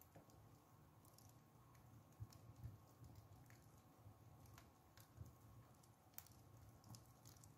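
Faint, scattered crackles and ticks from embers and charring lumps of Thursday salt baking in a stove's firebox, roughly one every second, over a low steady hum.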